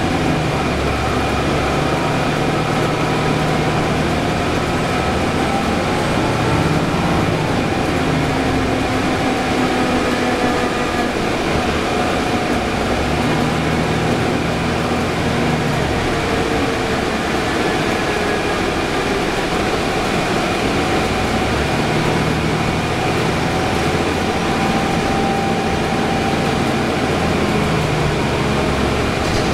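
Inside a 2011 Orion VII hybrid city bus under way: steady running and road noise, with a low engine hum that swells and fades every several seconds and fainter whines that drift up and down in pitch.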